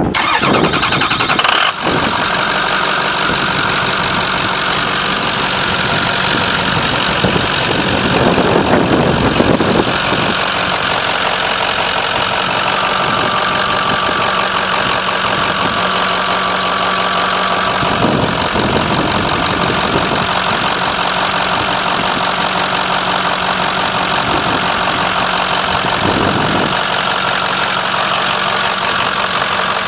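2006 Ford F250's 6.0-litre Power Stroke V8 turbo diesel starting in the first couple of seconds, then idling steadily.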